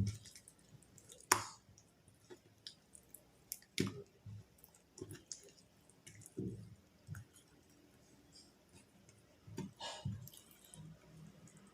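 Homemade glue slime being squeezed and stretched in the hands: scattered faint squelches with sharp little clicks, the sharpest about a second in.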